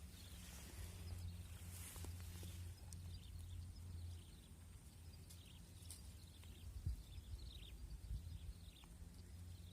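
Faint outdoor ambience: a steady low hum with faint short high chirps and a few small clicks, mostly in the second half.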